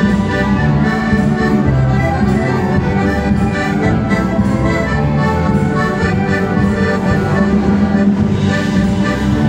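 Ensemble of many accordions playing a folk tune live together, with other band instruments, held notes running on without a break.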